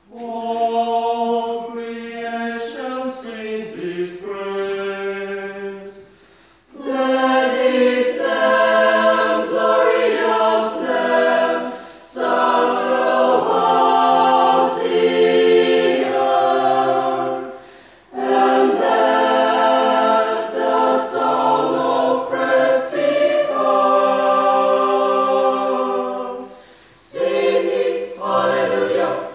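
Choir singing unaccompanied in parts, holding chords in long phrases with short breaks for breath between them. The singing grows fuller and louder about a quarter of the way in.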